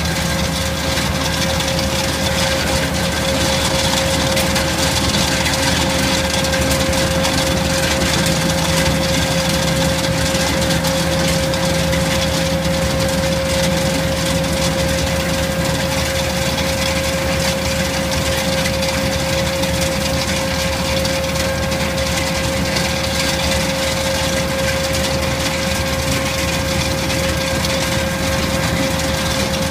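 Tractor-mounted GIAMPI STAR 1800 plus nut harvester running steadily as its hydraulic inter-row arm spins the sweeping finger wheel: tractor engine and machine drive running evenly, with a steady high whine.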